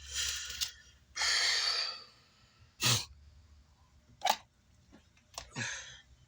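Short bursts of a person's breath, blowing or sighing out, three times, with a few sharp clicks between them.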